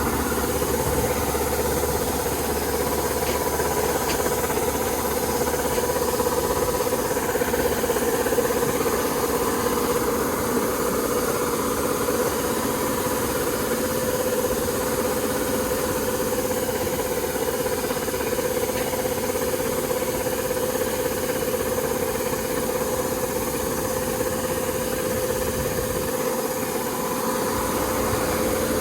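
Kubota rice combine harvester running steadily, its engine and drives giving a constant hum with a steady whine.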